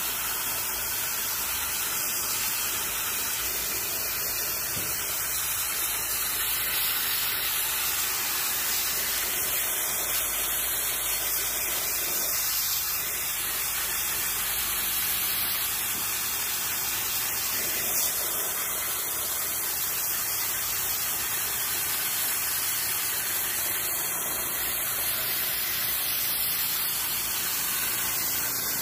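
Steady hiss of a high-pressure water jet spraying into the finned aluminium coil of a window-type air conditioner, rinsing soap foam and dirt out of the fins.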